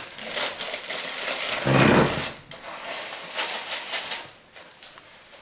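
Dry cereal poured from a cardboard box into a ceramic bowl, the pieces rattling and clinking against the bowl, with a louder burst about two seconds in.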